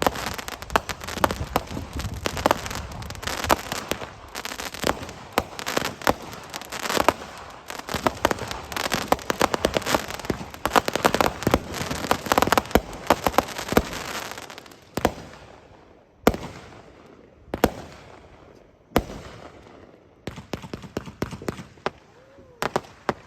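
Consumer firework cakes (Brothers Stop N Go, then Winda Artistic Pyro) firing: a dense run of bangs and crackling shots that thins about 15 seconds in to single bangs roughly every second and a bit, before rapid crackling starts again near the end.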